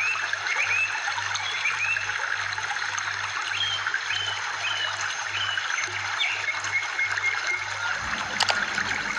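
Running water trickling steadily, like a small stream, with short chirps repeating about twice a second over it.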